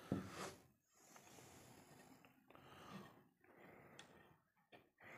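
Near silence, with faint small handling sounds and a light click about four seconds in.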